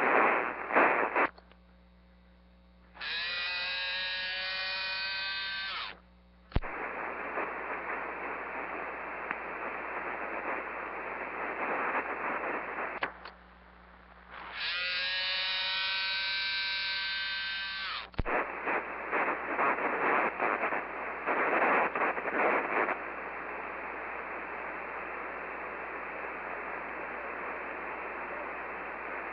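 CB radio receiver hiss and crackle, broken twice by a keyed transmission: the hiss drops out, a steady pitched tone rising slightly at its start is held for about three seconds, and a sharp click as the key is released brings the hiss back. It is a Cobra CB driving a 50-watt-slug amplifier into a beam antenna.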